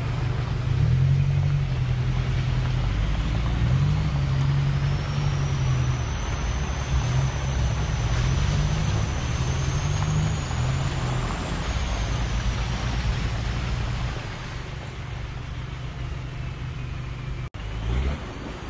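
Off-road pickup truck's engine running under changing throttle on a trail, its note rising and falling again and again, with a thin high whine that slowly climbs and then falls away.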